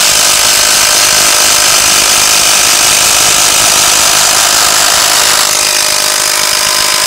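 Two 12-volt impact drivers, a Hyper Tough brushless and a DeWalt, hammering together as they drive 6-inch structural screws into a wooden post. About five and a half seconds in the DeWalt's screw seats and it stops, leaving the Hyper Tough hammering on alone.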